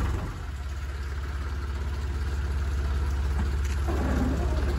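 Motor Rail Simplex narrow-gauge diesel locomotive engine running steadily with a low, even beat.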